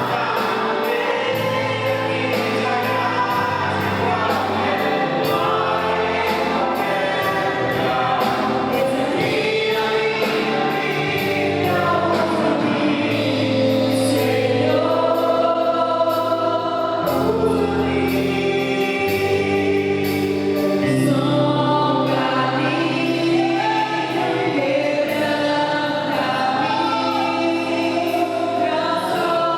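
Live Portuguese gospel worship song sung by a group of singers with instrumental backing. Long held vocal lines sit over a steady bass line, with a light high ticking beat through the first part.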